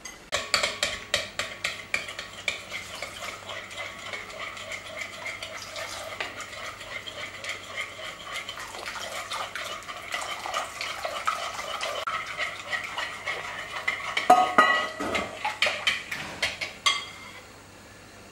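Metal spoon beating an egg mixture in a glass bowl: rapid clinking of the spoon against the glass, stopping about a second before the end.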